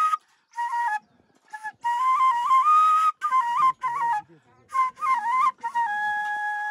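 Background music: a solo flute playing a melody in short phrases that move in small steps, with brief breaks between them and a long held note near the end.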